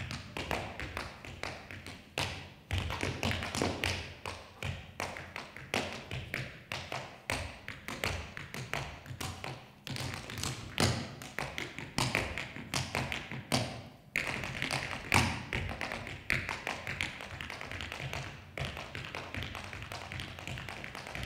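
Metal-plated tap shoes striking the stage floor in an improvised a cappella tap solo: fast, uneven runs of sharp taps and heavier heel and toe stamps, with no music.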